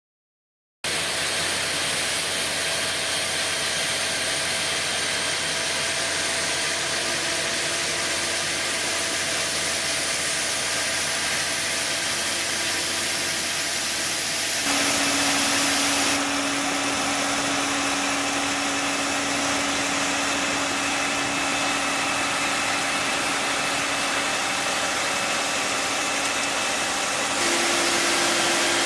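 Truck-mounted high-pressure water-jetting paint-removal unit running steadily, its jet and vacuum recovery giving a loud, even hiss over the steady hum of the truck's engine and pump. The sound starts just under a second in and shifts abruptly in tone about fifteen seconds in and again near the end.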